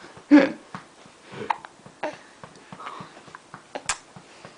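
Baby hiccuping: several short, sharp hiccups a second or two apart, the loudest about half a second in.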